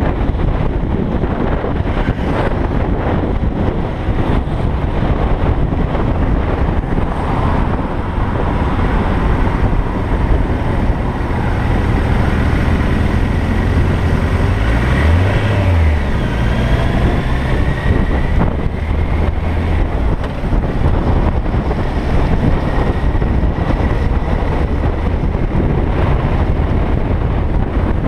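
Wind noise buffeting the microphone on a moving Suzuki Bandit motorcycle, over the steady running of its inline-four engine. About halfway through, the engine note dips briefly and climbs again.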